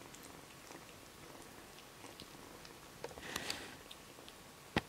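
Scottish Fold kitten eating soft food from a plate: faint small wet chewing and lapping clicks, with a brief scuffle about three seconds in and a sharp click near the end.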